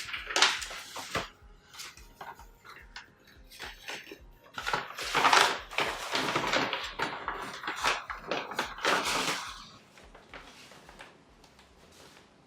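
Objects being handled, with clinks and rustling in uneven bursts that die away about ten seconds in.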